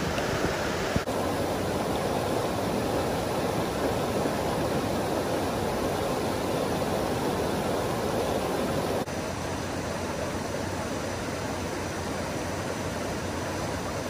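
Fast-moving flash-flood water rushing in a steady, even noise. The sound changes abruptly about a second in and again near nine seconds, slightly quieter after the second change.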